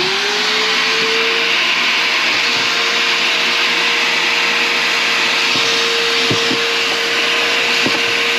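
Bissell SpotClean Pro portable carpet cleaner's suction motor running, its whine rising to a steady pitch in the first second and then holding, with a few faint clicks later. It is sucking water out of a rain-soaked floor carpet.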